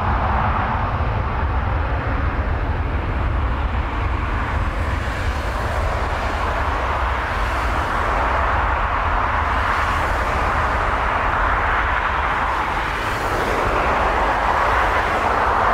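Four turbofan engines of an Airbus A340 airliner running loud as it rolls along the runway: a steady jet noise over a deep rumble.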